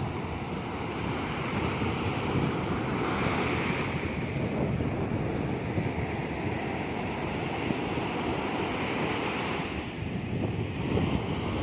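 Small waves breaking and washing up a sandy beach, the foam hissing as each one runs in and draws back, with wind buffeting the microphone. One wash swells up about three seconds in, and another builds near the end.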